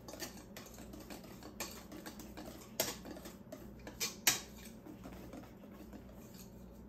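A utensil clicking and scraping against a mixing bowl as cake batter is stirred: irregular light clicks, with a few sharper knocks about three and four seconds in.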